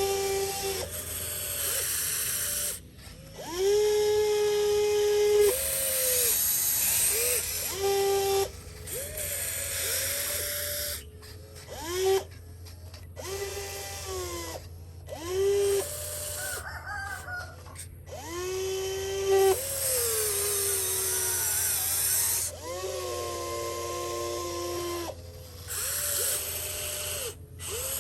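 Small electric motor whining in short repeated runs, each rising in pitch as it spins up, holding a steady note, then falling as it stops. Several runs are broken off suddenly. A faint low hum continues underneath.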